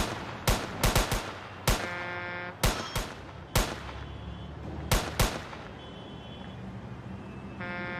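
Gunfire from police pistols and rifles: about a dozen sharp shots at irregular spacing over the first five seconds, some in quick pairs and triplets. Near the end a steady horn-like tone begins.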